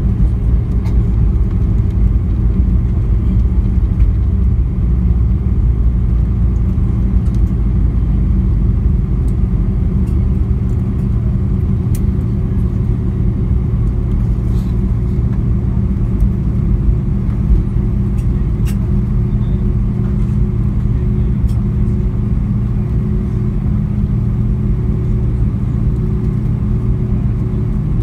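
Cabin noise inside an Airbus A320 rolling along the runway after landing: a steady low rumble from the jet engines and the wheels on the runway, with a steady engine hum, getting a little quieter toward the end. A few faint clicks sound above it.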